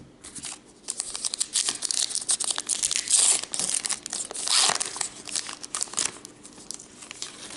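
Crinkling and tearing of a trading-card pack wrapper being ripped open by hand, loudest in two bursts in the middle.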